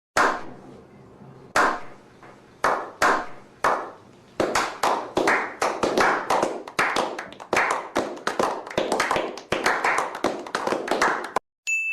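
Hand clapping in a slow clap: a few single claps a second or more apart, speeding up from about four seconds in to quick, steady clapping that stops suddenly near the end. A bright, ringing ding follows right at the end.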